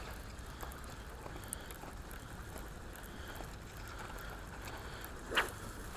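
Steady low outdoor rumble of wind and sea water, with faint scattered ticks and one short, sharp sound about five seconds in.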